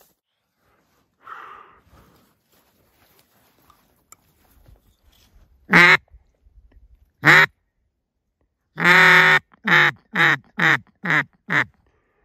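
Duck call blown by a hunter, imitating hen quacks: two single quacks, then a longer quack followed by a run of five quicker, shorter ones. It is a calling sequence meant to draw passing ducks in to land.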